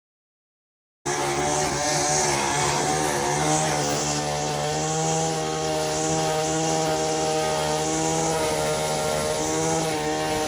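Power tool motor running steadily, starting about a second in, its pitch wavering slightly as the load changes.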